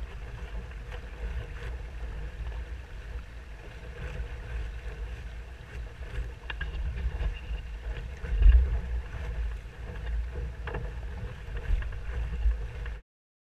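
Wind buffeting the microphone of a camera mounted on a Musto Skiff sailing upwind, over the rush of water along the hull, with a few knocks and slaps. The loudest is a low thump about eight and a half seconds in. The sound cuts off suddenly near the end.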